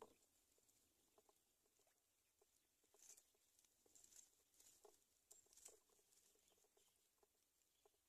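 Near silence, with a few faint soft clicks scattered between about three and six seconds in.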